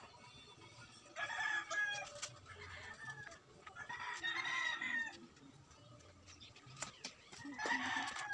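Chickens calling faintly: three separate pitched calls, each about a second long, a little over a second in, about four seconds in, and near the end.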